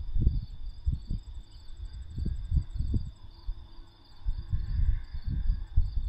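Crickets chirping steadily in a high, pulsing trill, under irregular low gusts of wind buffeting the microphone. The gusts are the loudest part and drop away briefly around the fourth second.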